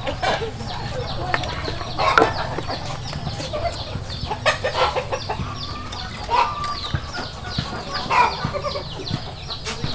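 Chickens clucking, with many short falling chirps, and a few sharp knocks of firewood being handled at a wood-fired stove.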